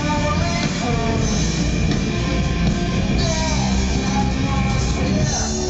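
Live rock band playing: electric guitar and bass guitar in a full band sound.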